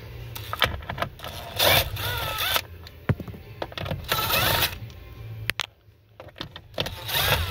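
Cordless electric driver spinning out the bolts under a steering column cover, in three short bursts of motor whine that wavers in pitch, with clicks and clatter of the tool and bolts between.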